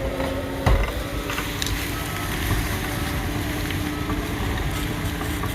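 John Deere crawler dozer's diesel engine running steadily, with one sharp knock about a second in.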